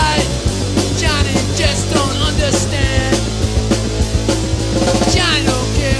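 Rock music soundtrack with a drum kit keeping a steady beat.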